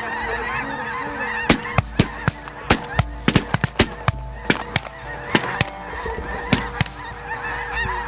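A large flock of snow geese calling overhead, a dense continuous chorus of honking. Many sharp cracks or pops come through the middle of it, louder than the calls.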